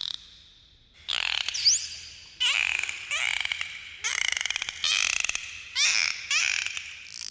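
Dolphin vocalizing under water: a string of buzzy pulsed squawks, about one a second, mixed with whistles, including a short rising whistle about one and a half seconds in.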